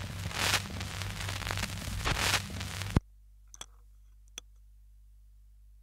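Audience applause on a 1947 archival speech recording, heard through heavy hiss over a low steady hum and swelling and fading a few times. It ends with a sharp click about three seconds in, leaving only a faint hum and two soft clicks.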